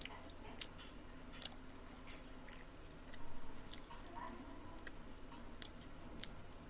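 A person chewing food close to the microphone, with wet mouth clicks and smacks scattered throughout and a louder stretch of chewing a little after three seconds in.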